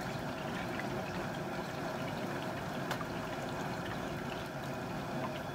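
Hot frying oil in a turkey fryer pot bubbling and sizzling steadily, with oil dripping back in from the fried turkey hanging over it.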